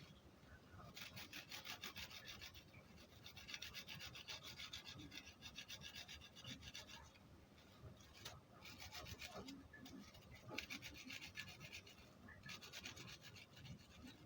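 Faint, rapid back-and-forth rubbing, typical of a garlic clove being rubbed against the inside of a jar lid. It comes in several spells of quick, even strokes separated by short pauses.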